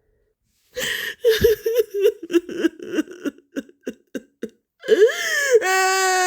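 A young female voice crying: a run of short, quick sobs for about four seconds, then a rising and falling wail about five seconds in that breaks into a long, held cry near the end.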